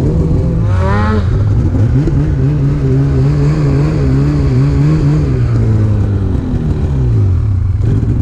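Polaris SKS 800 snowmobile's two-stroke engine revving up about a second in, holding a wavering steady pitch under throttle, then easing off and dropping back low near the end.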